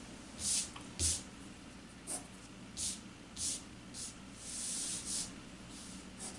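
Graphite pencil sketching on drawing paper: a run of short, scratchy strokes, roughly one every half second to second, with one longer stroke about four and a half seconds in.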